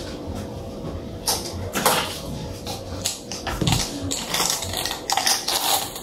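Irregular clicking and rattling of a screwdriver and small fan parts being handled, in quick uneven bursts over a faint steady hum.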